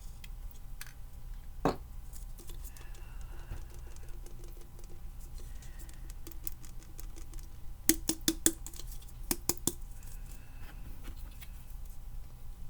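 Scattered small hard clicks and taps from handling craft supplies (ornament and ink bottles), with a single knock about two seconds in and a quick run of sharp clicks between about eight and nine and a half seconds in.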